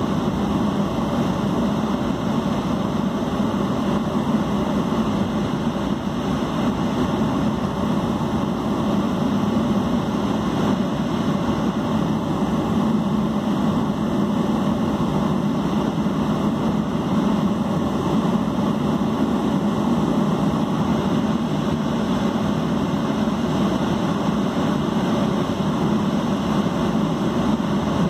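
Jet airliner engines and airflow running steadily, heard inside the passenger cabin as an even low hum.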